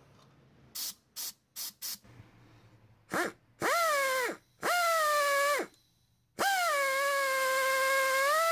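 Pneumatic drill drilling out a broken exhaust stud from an engine's cylinder head, run in stop-start bursts to clear the shavings. First come four short hisses, then three runs of a steady whine over air hiss; each dips in pitch as the bit bites, and the last run lasts about two and a half seconds.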